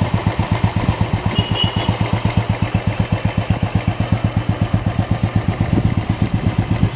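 Royal Enfield motorcycle engine idling with an even, steady beat of about nine pulses a second.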